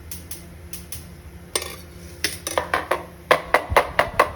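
Metal utensil clanking against a cooking pot: a few scattered knocks, then a quick run of about seven sharp strikes near the end. A steady low hum sits underneath.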